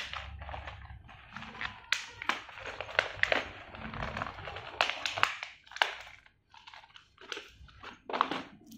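Plastic packaging crinkling as parts are handled, with irregular sharp clicks and crackles and a few soft knocks.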